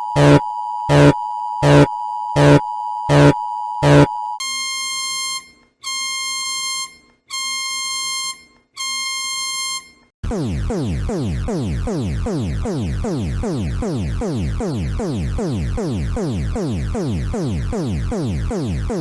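Synthesized emergency-alert alarm tones in three stages. First a steady tone near 1 kHz with sharp beeps about every 0.7 s. Then four long buzzy beeps with short gaps, and from about ten seconds in a fast, repeating falling sweep.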